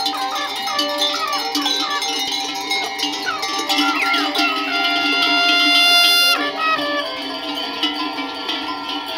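Many livestock bells on a moving flock of sheep and goats, clanking and ringing in a dense, uneven jangle. A held, steady tone sounds for over a second just past the middle.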